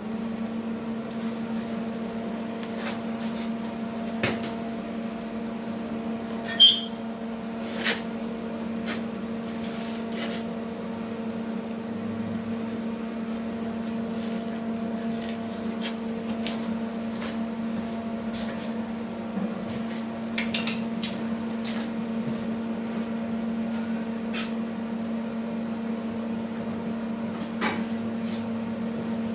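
Welding machine switched on and humming steadily at idle, with scattered sharp clicks and knocks of metal parts being handled, the loudest about seven seconds in.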